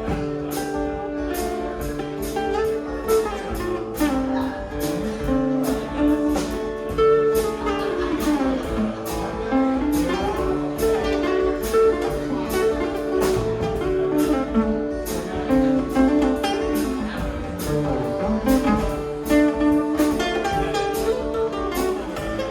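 Instrumental break with two guitars: a slide guitar plays a lead of gliding notes over a strummed rhythm guitar.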